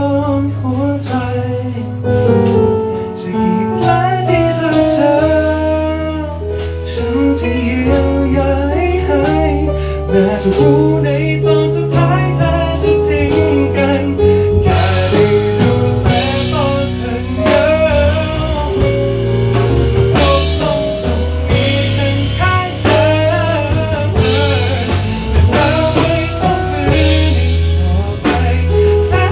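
A band playing a pop-rock song with drum kit, bass and guitar, a melodic line bending over the top; the drums open up with cymbals about halfway through.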